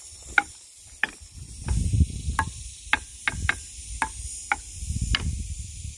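A wooden stick striking the logs of an outdoor log xylophone, about ten irregular knocks, each ringing briefly with a hollow wooden note at a different pitch.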